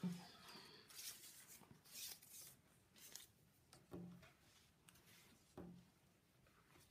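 Faint rustling of cotton jersey fabric and the handling of a tape measure on a wooden table, with a few short, soft low knocks.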